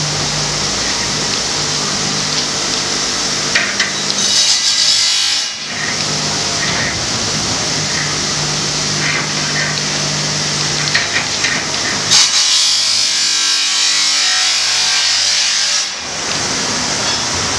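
Steady machine hum, broken twice by a few seconds of scraping and rubbing with scattered clicks: one stretch about four seconds in, and a longer one from about twelve seconds.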